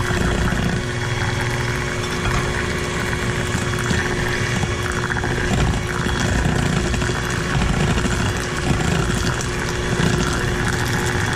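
Electric stand mixer running steadily at one speed, its twin beaters whipping creamed butter, sugar and eggs into cake batter in a stainless steel bowl; a steady motor hum with one constant tone.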